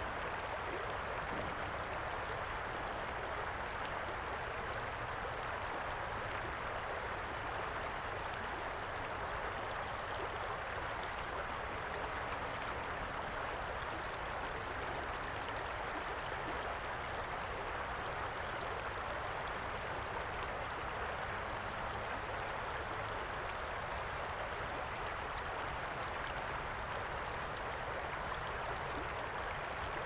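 Shallow river flowing over a stony bed: a continuous, even rush and ripple of water.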